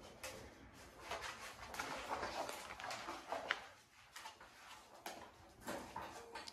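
Faint rustling and light clicks from puppies being handled, with a few brief small noises from 7-week-old American Bully puppies.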